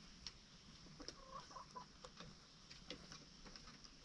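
Chickens clucking faintly: a short run of low clucks a little past a second in, among scattered small clicks.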